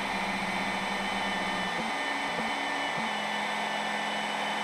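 Compact router spindle on a DIY CNC machine running steadily at high speed with a high whine, while the gantry's stepper motors hum low and change pitch a few times as the head moves to the next hole position.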